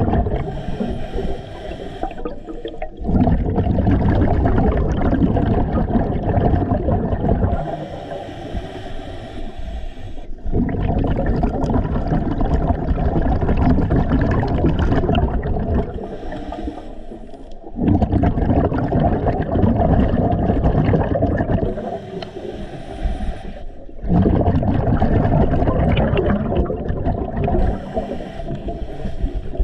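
A scuba diver breathing through a regulator underwater: a hissing inhale of a couple of seconds, then a longer low rumble of exhaust bubbles, repeating about every six seconds for some five breaths.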